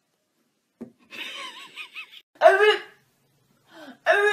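Short bursts of a woman's high-pitched voice and laughter, starting about a second in, the loudest burst about halfway through and another near the end.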